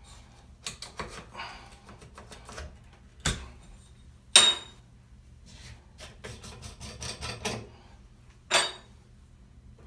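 Metal shower valve trim parts (handle and temperature dial) clicking and clinking as they are pulled off the valve stem and handled, a scatter of small clicks with sharper clinks about three and four seconds in and again near the end.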